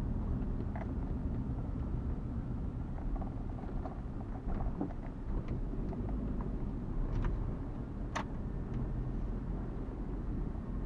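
Ford Ranger pickup rolling slowly, heard from inside the cab: a steady low engine and road rumble. Scattered light clicks and knocks come as it rolls onto the covered bridge's wooden plank deck, the sharpest about eight seconds in.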